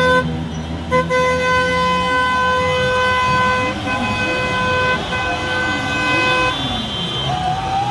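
Car horns honking in celebration in the street. One horn is held in long blasts, with a short break under a second in, and stops about six and a half seconds in. A second horn with a higher, wavering pitch sounds near the end, over a background of voices.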